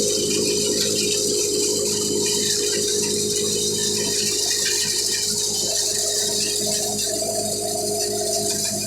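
Wheat thresher running steadily at harvest: a dense, continuous rattle and hiss over a constant machine hum, with a higher hum joining about six seconds in.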